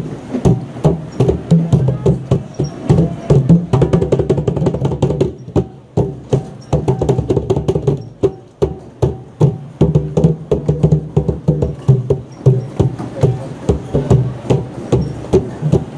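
Hand drums with skin heads struck with bare hands: a fast, uneven run of sharp slaps and deep thumps, with a couple of brief lulls.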